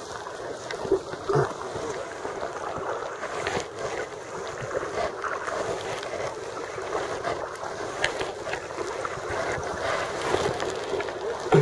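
Sea kayak being paddled: paddle blades dipping and splashing and water lapping against the hull, with wind noise on the microphone and a few short sharp clicks.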